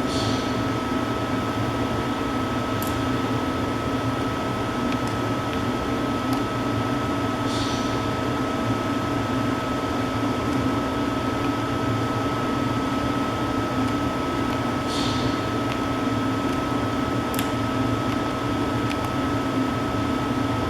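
Leadwell T-6LSM CNC turning centre running: a steady machine hum with a constant high whine. Short hissing bursts come about every seven and a half seconds, with a few faint clicks.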